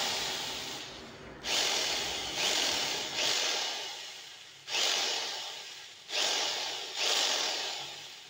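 Rotary hammer drill's motor switched on in short pulses, about seven times: each time it starts sharply, then winds down over about a second. The drill has just had new carbon brushes fitted and been freshly greased, and the grease has changed its sound only slightly.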